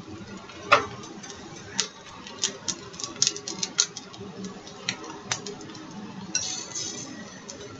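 A utensil clicking and tapping against a frying pan while spreading flatbread batter, with a scraping stretch near the end, over a low steady sizzle of batter cooking in oil.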